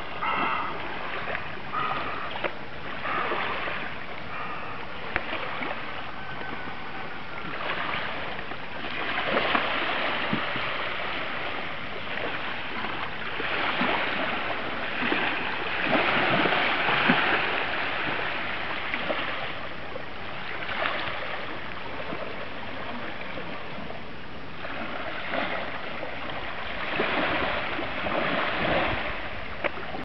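Small lake waves lapping and washing against a reedy shoreline, swelling louder every few seconds.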